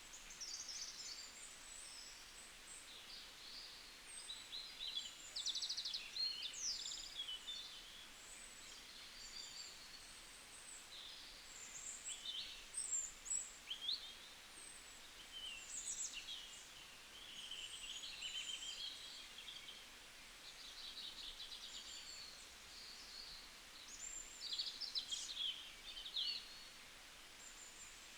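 Wild birds singing and calling: many short, high chirps, trills and whistled phrases overlapping throughout, over a faint steady hiss.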